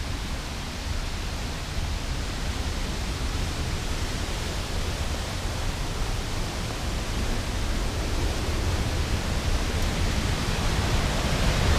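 Steady rushing of a waterfall and creek, a constant even hiss over a deep rumble, growing gradually louder near the end.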